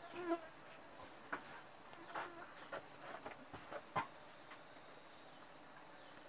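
Steady high-pitched drone of jungle insects, with scattered light knocks and clatters as a bamboo drying tray is lifted and handled, the sharpest about four seconds in.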